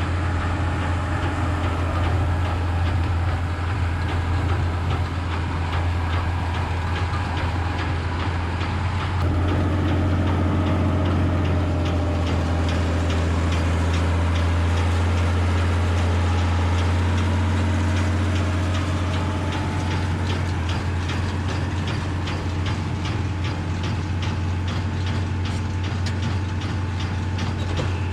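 Massey Ferguson 3505 tractor's diesel engine running steadily with a deep, even hum. A fast, even clicking runs over it, growing plainer about nine seconds in, when the engine note also changes.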